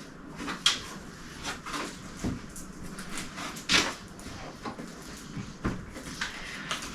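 Handling noise from working at a part fastened inside a new 3D printer: scattered clicks, knocks and light rustles of plastic, the loudest knock about four seconds in.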